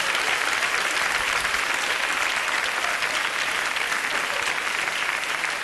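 Live studio audience applauding steadily, easing off slightly near the end.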